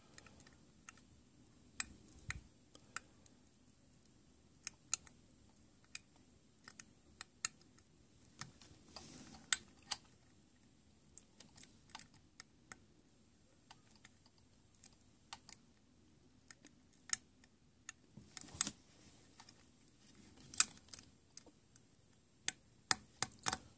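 Scattered light clicks and taps of a small coaxial plug being worked into a tight jack on a radio transceiver's circuit board, with fingers fumbling at the plug and its cable. The clicks are irregular, with a few louder ones in the last few seconds.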